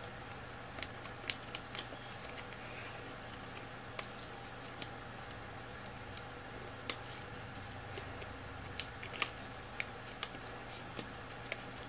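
A sheet of paper being folded and creased by hand: scattered sharp crinkles and clicks at irregular intervals over a faint steady hum.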